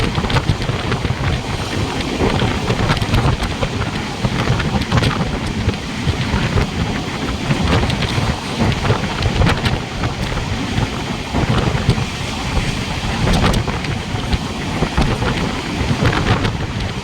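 A loud, steady rushing rumble with wind buffeting the microphone and a scatter of small crackles.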